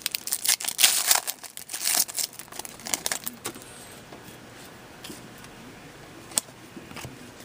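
Foil wrappers of trading-card packs being torn open and crinkled, with cards handled. The crinkling is densest in the first half, then settles into quieter handling with one sharp click later on.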